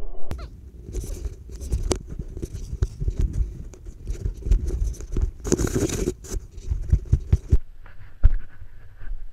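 Scraping and sharp knocking right against a GoPro Hero 3 after a snowboarding crash, as snow and clothing rub the camera while the rider moves about; the longest burst of scraping comes about five and a half seconds in, and it goes much quieter for the last couple of seconds.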